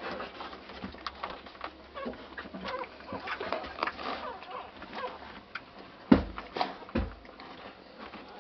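Newborn American Staffordshire Terrier puppies, three days old, squeaking and grunting softly while they nurse from their mother. Two dull thumps stand out about six and seven seconds in.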